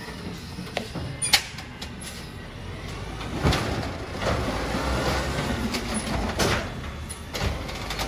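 Autocar ACX garbage truck's engine running and revving up about halfway through as its hydraulic automated side-loader arm grabs and lifts a wheeled trash cart. A sharp clank comes about a second in, with further knocks of the arm and cart.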